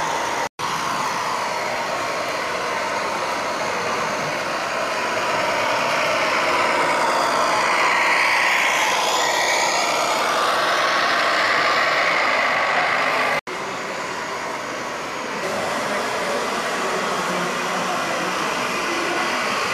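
Steady engine-like truck noise from a radio-controlled scale Mack truck driving on an indoor track, over a general hall din. The sound cuts out completely twice, briefly: about half a second in and about two-thirds of the way through.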